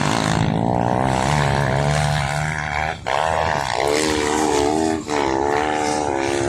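Side-by-side UTV engines revving hard at high throttle as the machines climb a steep sand dune wall, the pitch sagging and rising with the load. The sound cuts out briefly about three and five seconds in and comes back at a different pitch.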